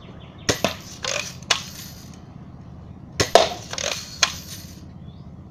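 Red Ryder lever-action BB gun being shot and cocked: two groups of sharp clicks and snaps about three seconds apart.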